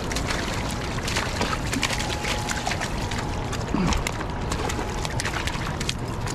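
River water running and lapping along a stony bank, with many short splashes and clicks as a hooked smallmouth bass is hauled out of the shallows and flops on wet stones.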